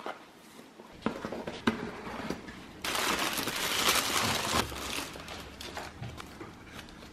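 Gift box being unwrapped: a ribbon is pulled loose and the cardboard lid handled, then tissue paper crinkles loudly for about two seconds as it is pulled back. Quieter rustling and handling follow as a glass jar is lifted out.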